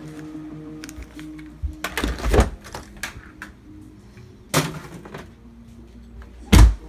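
Background music, over which objects are rummaged through with sharp clattering knocks and rustles: a cluster about two seconds in, another at about four and a half seconds, and a heavy thump near the end, the loudest sound.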